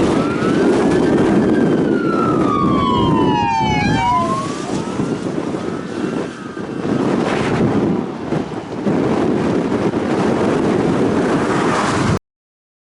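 Emergency vehicle siren wailing in slow rising and falling glides, switching briefly to a fast yelp, over a heavy, steady rush of wind noise. The sound cuts out suddenly near the end.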